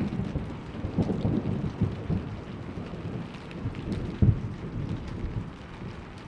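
Thunder rumbling and crackling over steady rain. The rumble dies away toward the end, with one sharper crack a little past four seconds in.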